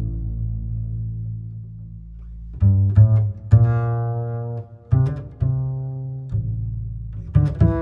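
Background music of low, sustained pitched notes, a new note starting every second or so.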